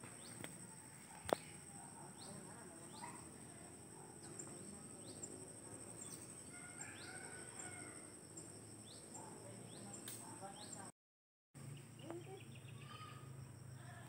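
Quiet outdoor ambience: a bird repeats short, falling chirps about once a second over a steady high-pitched insect drone. A single sharp click comes about a second in, and the sound cuts out briefly near the end.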